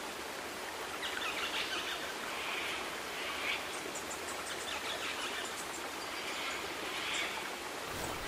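Steady hiss of a flowing river, with small birds calling on and off over it.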